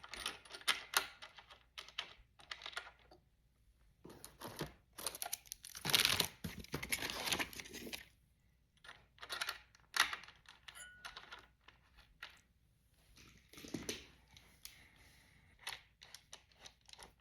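Small metal screws and brackets from a CPU cooler mounting kit being handled on the bench: scattered clicks and light rattles, with two longer stretches of rustling and crinkling.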